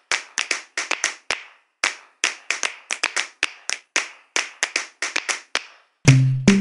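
Sharp hand-clap hits in an uneven, syncopated pattern, about four a second, with dead silence between them: the opening of an intro music track. A bass-and-percussion beat comes in near the end.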